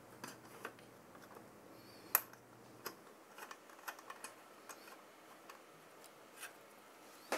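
Faint, scattered small clicks and taps of a CPU cooler and its mounting hardware being handled while its screws are started by hand, with one sharper click about two seconds in.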